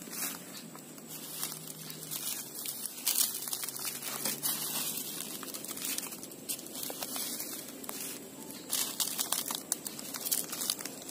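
Irregular rustling and crackling, with many sharp ticks over a steady hiss, growing busier near the end.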